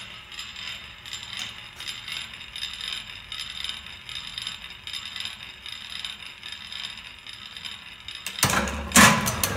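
Schleicher Bros Otto & Langen atmospheric engine running on its hit-and-miss governor: its valve gear and shaft ratchet make a light, even ticking. Near the end a much louder metallic clatter with low thuds breaks in.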